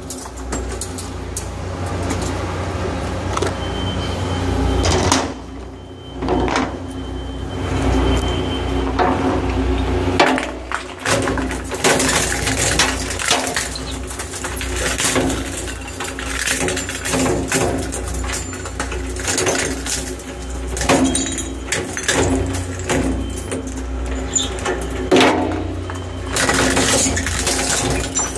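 Industrial twin-shaft hard drive shredder running, its cutter discs crunching and snapping hard disk drives apart. Frequent sharp cracks and bangs sound over a steady motor hum, with a couple of brief lulls.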